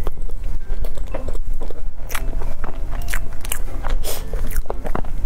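A person chewing a mouthful of chestnut cream layer cake close to a lapel microphone: irregular mouth clicks and chewing noises.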